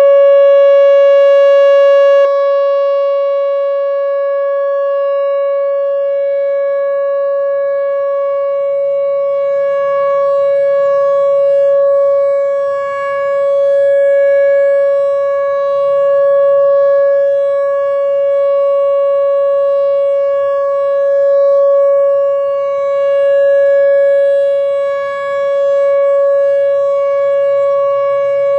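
Whelen WPS-4004 electronic outdoor warning siren sounding its Full Alert steady tone: one held pitch with its overtones, swelling and fading slightly every few seconds, with a brief click about two seconds in. It is not very loud, which the recordist puts down to the siren likely using only two of its speaker drivers.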